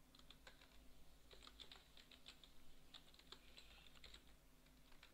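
Faint typing on a computer keyboard: irregular keystrokes as a short file name is entered.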